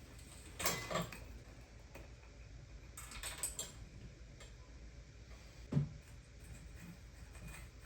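Light metallic clicks, clinks and a few knocks of bike wheel hardware being handled: axle spacers and nuts as a wheel comes off an e-bike frame. They come as scattered taps, with a small cluster about three seconds in.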